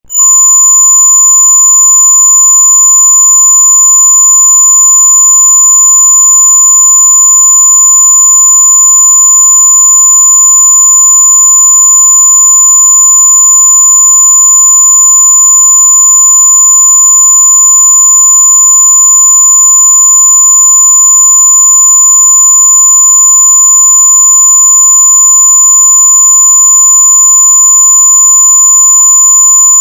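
Very loud continuous electronic tone: several steady pitches sounding together, topped by a piercing high whine, held unbroken without any pulsing or change in pitch.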